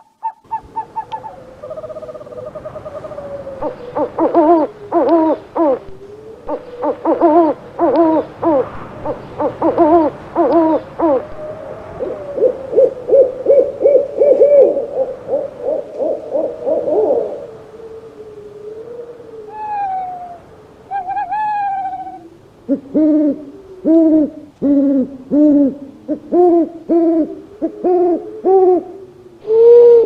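Owls hooting: bursts of quick hoots, then a long rapid trill from about twelve to seventeen seconds in, then wavering slurred calls and a steady series of hoots about one a second near the end.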